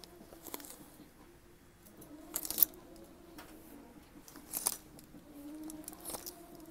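Plastic clip hangers clacking and scraping along a metal clothing rack as garments are pushed aside, in several short bursts. The loudest burst comes about two and a half seconds in.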